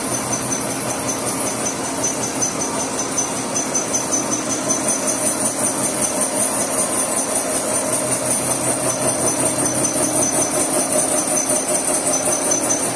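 Small horizontal boring mill with a 3-inch spindle running a boring bar through the pin hole of a Caterpillar loader Z-link: a steady machining whir with a rhythmic pulse and a high-pitched ring.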